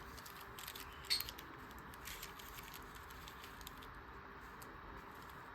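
Faint rustling and small clicks of thin paper collage pieces being handled, with one sharper tick about a second in.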